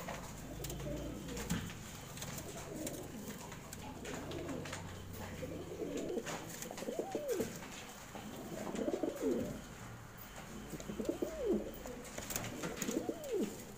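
Domestic fancy pigeons cooing in a loft. Each coo rises and falls in pitch, and the coos repeat about every two seconds, growing louder from about six seconds in.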